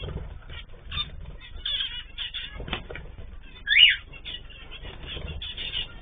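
Aviary cage birds, zebra finches among them, calling: many short chirps overlap, with one louder rising-and-falling call about four seconds in.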